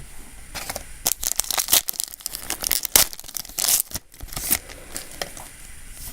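A foil Yu-Gi-Oh! booster pack being torn open and crinkled: a run of sharp ripping and crackling from about half a second in until about four and a half seconds in.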